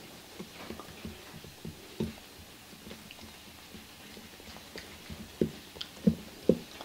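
Spatula stirring a thick ketchup and chili sauce glaze in a glass bowl: soft wet stirring with light irregular taps of the spatula on the glass, a few louder taps in the second half.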